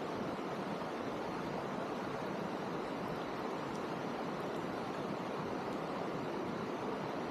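Steady heavy rain, an even hiss with a few faint drop ticks.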